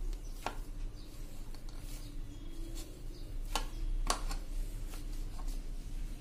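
Hands kneading and pressing a ball of samosa dough on a ceramic plate, with a few soft knocks, over a faint steady hum.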